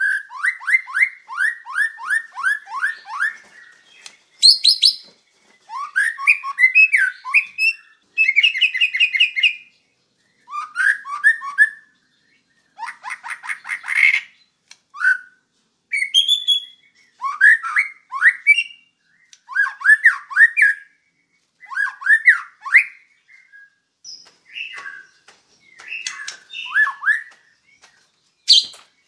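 White-rumped shama singing a varied song: a chain of quick whistled and chattering phrases with short pauses between them, opening with a fast run of about ten downslurred notes.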